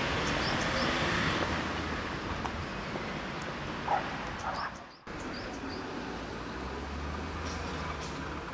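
Steady road traffic noise from nearby street traffic, with a few short, high chirps over it. The sound drops out for a moment about five seconds in.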